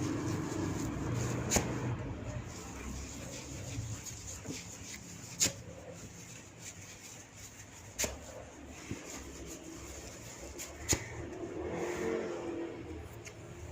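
Joints cracking during a massage: four sharp, single pops about three seconds apart, with a few fainter clicks between, over a steady low background hum.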